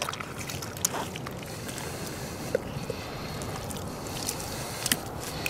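Wet handling sounds of a red deer carcass being gutted by hand, over a steady background hiss, with a few brief sharp clicks.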